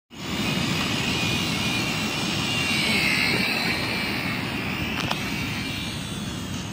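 Small toy quadcopter drone's propellers whining high as it lifts off from a hand and flies, the pitch dipping and rising again, over a low rumble of wind and surf. A brief click about five seconds in.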